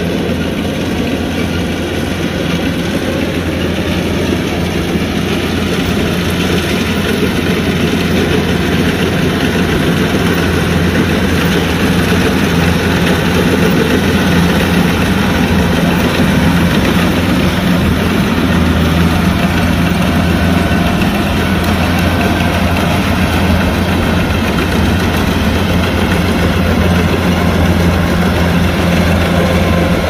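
Kubota combine harvester running steadily: a low diesel engine drone with a dense mechanical clatter over it.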